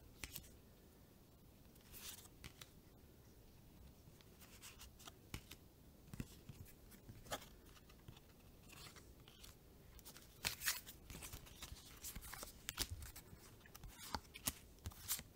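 Trading cards being handled: scattered soft flicks, slides and taps of card stock against card stock, growing busier in the last few seconds.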